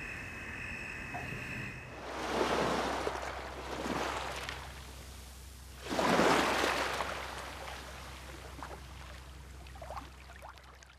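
Recorded sea waves washing in three swells that build and fade, about two, four and six seconds in, the last the loudest, as a nature soundscape for sleep. Before the first wave, a faint steady high-pitched tone.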